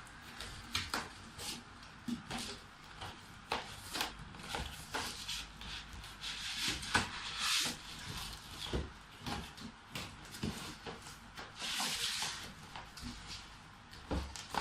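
Box packaging being handled as a new laptop is lifted out: irregular knocks, scrapes and crinkly rustling, with louder rustling about halfway through and again near the end.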